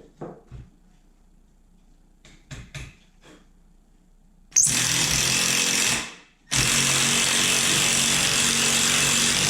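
Cordless impact driver driving a fastener into wood in two runs: a short one about halfway through and a longer one of about three seconds near the end. A few light knocks of handling come before.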